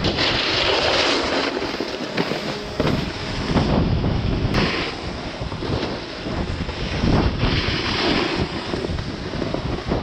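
Snowboard edges scraping and carving across packed snow at speed, in repeated hissing surges, with wind rushing over the microphone.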